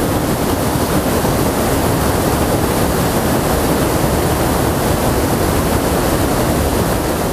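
Steady rush of river water pouring over a low weir, an even, unbroken noise.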